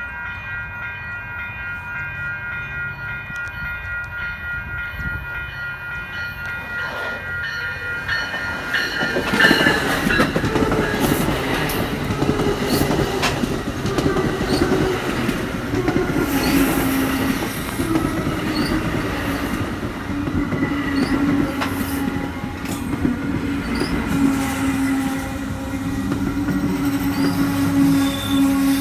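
Level-crossing warning bells ringing steadily while a bilevel commuter train approaches. About nine seconds in, the train arrives and runs alongside the platform with loud rail noise, clattering wheels and brief high wheel squeals, over a steady low hum.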